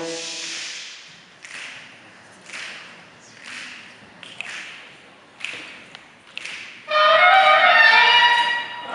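Saxophone ensemble playing: a short, soft accent about once a second, then a loud held chord about seven seconds in.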